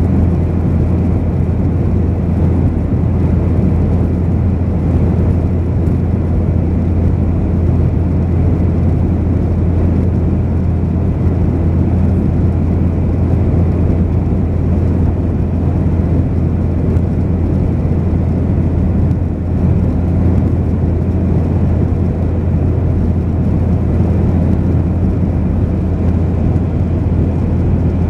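Steady in-flight cabin noise of a Boeing 737-900ER, heard from a window seat over the wing: a low, unbroken drone of its CFM56-7B turbofan engines and the air rushing past the fuselage.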